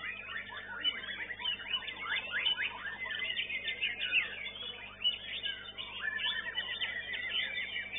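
White-rumped shama (murai batu) singing a fast, unbroken run of varied whistles and quick downward-sweeping notes.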